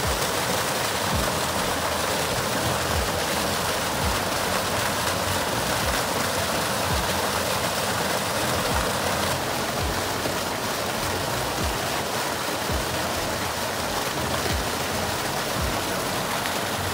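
Water pouring steadily from a spout into a cold plunge pool, a constant rushing splash.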